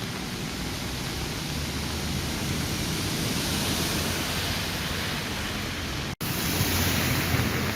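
Steady hiss of a heavy rain downpour in a storm. About six seconds in the sound cuts out for a moment, then comes back louder, with wind rumbling on the microphone.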